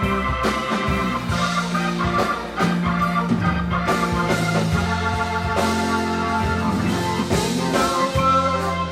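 Live reggae band playing an instrumental section: a keyboard solo over bass guitar and drums.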